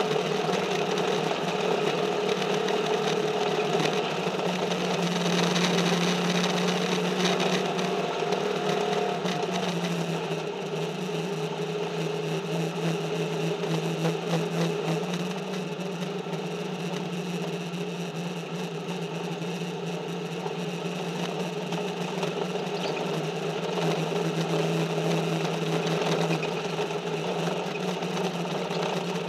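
Race car engine heard from inside the cockpit at racing speed, running hard with its pitch rising and falling. It drops back and quietens for a stretch a third of the way in, then climbs again near the end.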